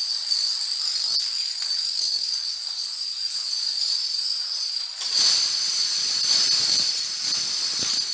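Thousands of small dominoes toppling in a cascade: a dense, continuous clattering rattle that grows louder and fuller about five seconds in.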